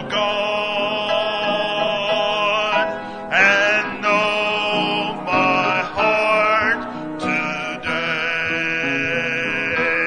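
A church congregation singing a hymn, long held notes in slow phrases.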